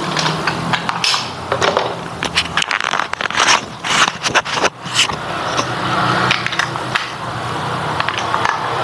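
Plastic TV remote controls being handled, a rapid run of clicks and rattles through the first half, over a steady low hum with hiss.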